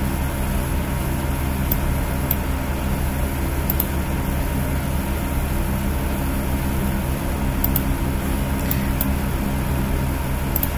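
A steady low hum with a faint higher tone held throughout, and a few faint high ticks scattered through it.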